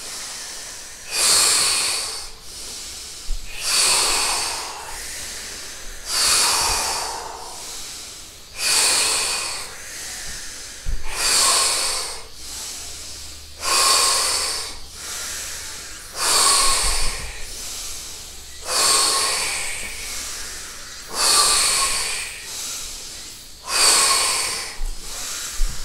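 Deep, forceful breathing through the mouth, one big breath about every two and a half seconds. These are the deep, fast breaths of a breathwork round that comes before a breath hold.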